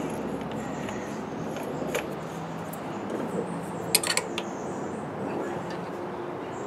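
Light metallic clinks of a hand tool against steel at a milling machine's spindle: one about two seconds in and a quick cluster near four seconds, over a steady background noise.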